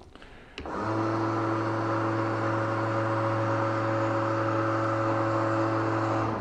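Electric motor of a Sea-Pro electric transom lift (jack plate) running, moving the outboard motor through its travel: a steady hum that starts a little under a second in and stops abruptly just before the end.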